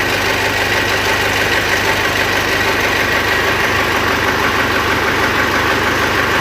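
Mitsubishi L200 Triton 3.2 four-cylinder turbodiesel idling steadily, with a firm, pronounced knock and a timing-chain rattle. The mechanic diagnoses the knock as piston slap from a worn cylinder, alongside a worn timing chain.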